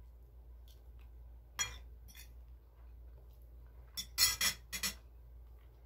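Metal spoon and fork clinking and scraping on a plate: a couple of light clicks, then a quick run of sharp clinks near the end.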